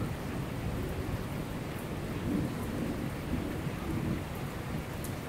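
Heavy rain pouring steadily on a street, with a low rumble of thunder swelling and fading in the middle.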